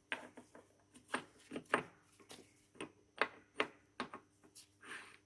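Sharp, irregular clicks and knocks, about a dozen, of metal parts being handled on a metal planer's cross slide.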